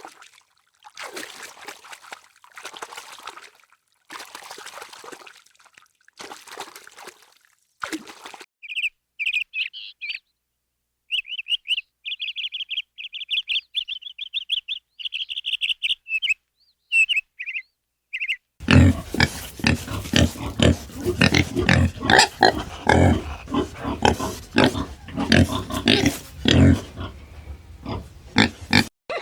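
A run of animal calls: a few short breathy bursts, then a series of high chirps, then about ten seconds of loud, rapid, rough calls.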